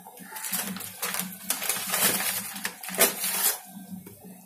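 Steel ladle knocking and scraping in a stainless steel pot of water as jaggery is put in: a series of short, irregular clinks and scrapes over a low steady hum.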